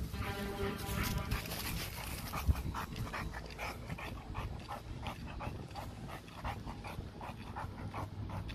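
A Staffordshire bully-type dog panting rapidly and rhythmically, about four breaths a second, tired from exercise, with a brief high whine near the start.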